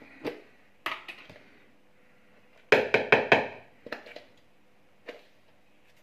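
Containers and utensils knocked and tapped on a kitchen counter while canary egg food is mixed: a couple of single knocks, then a quick run of sharper taps about three seconds in, and a last knock near the end.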